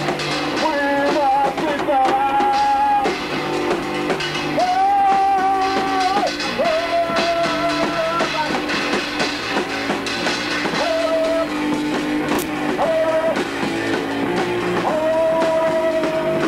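Rock band playing live in a rehearsal room: electric guitar, bass guitar and drum kit, with singing, and several long notes held for a second or two at a time.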